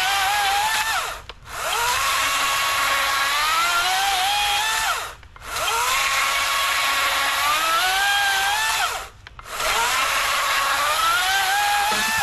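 Wild Badger 40V brushless electric chainsaw cutting through a log: a steady motor whine whose pitch climbs as each cut goes on. It cuts out briefly three times, about every four seconds, then starts again.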